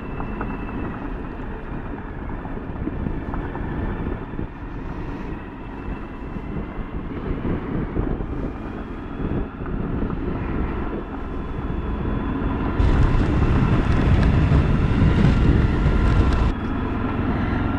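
Motorcycle engine running steadily at road speed on a gravel road, with wind noise on the bike-mounted microphone. From about two-thirds of the way in, the wind noise gets much louder for a few seconds, then drops off suddenly.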